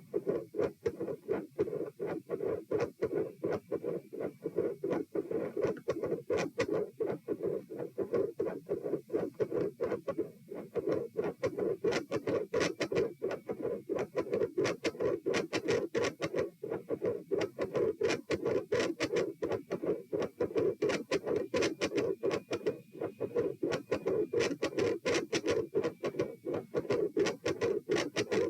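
Heart sounds at about 90 beats a minute, with a loud mid-systolic murmur filling each beat. The murmur grows louder from about the middle on and swells and eases in cycles.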